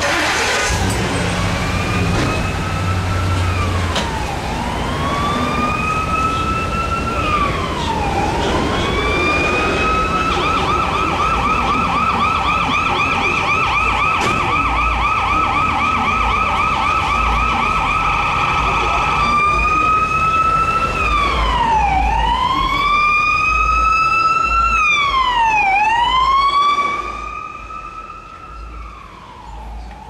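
Fire truck siren, first cycling in a slow wail, then switching to a rapid yelp about ten seconds in, then back to quicker wail sweeps. It drops off sharply near the end as the truck goes past.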